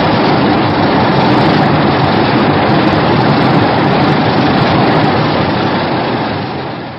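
A loud, steady rushing and rumbling sound effect from the 1990s Godzilla films, dense and without a clear pitch, fading away over the last second or so.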